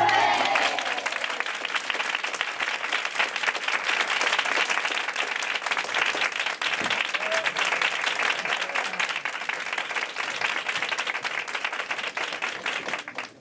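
Audience applauding after a sevillanas, with the last sung note dying away at the very start; the applause fades out near the end.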